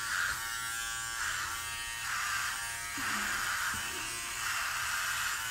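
Handheld electric hair clippers buzzing steadily against a closely shaved scalp, the buzz swelling and easing about once a second as the blade is passed over the stubble.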